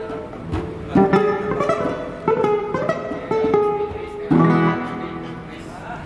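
Guitar being played: short phrases of picked notes and strummed chords, each struck sharply and left to ring, with a fresh strike about every second.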